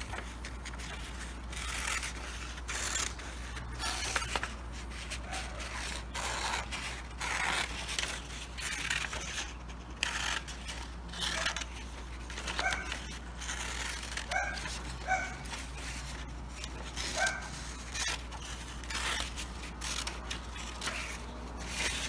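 Scissors cutting construction paper: repeated snips with crinkling and rustling of the paper sheets as it is bent and turned. A few short faint squeaks come around the middle.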